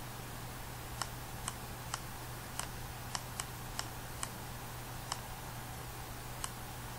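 Irregular sharp clicks, about ten over several seconds, from the computer input device used to handwrite numbers on screen, over a steady low hum.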